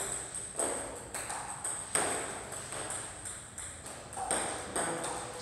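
Table tennis serves: sharp, separate clicks of bat striking ball and the celluloid ball bouncing on the table, about five in all, the loudest about two seconds in.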